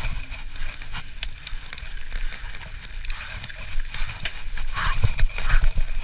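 Trek Slash full-suspension mountain bike rolling downhill over gravel and dirt trail: a steady low rumble of tyres and wind on the bike-mounted camera, with scattered knocks and rattles as the bike goes over bumps.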